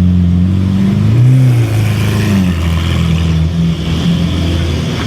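Supercar engine idling close by, with a short throttle blip about a second in that rises and falls back before settling into a steady idle.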